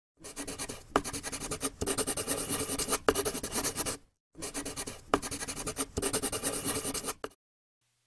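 Scribbling on paper: a quick, dense run of scratchy strokes, heard in two stretches of a few seconds with a short break about halfway.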